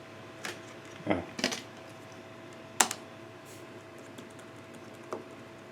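A handful of separate key clicks and taps on a laptop keyboard, the sharpest near the middle, over a faint steady hum.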